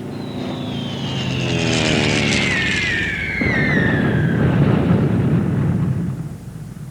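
Aircraft engine drone under the whistle of a falling bomb, a single long tone sliding steadily down in pitch, then a bomb explosion about three and a half seconds in that rumbles deep for about three seconds before fading.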